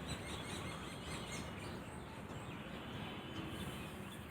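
Faint, steady ambient background noise with no distinct event.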